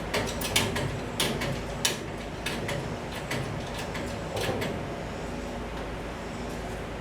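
A run of sharp clicks and knocks, as of tools and metal parts being handled, over the first few seconds, over a steady low hum.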